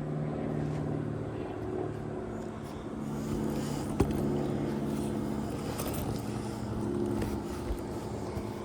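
A steady engine or motor hum, with a single sharp click about four seconds in.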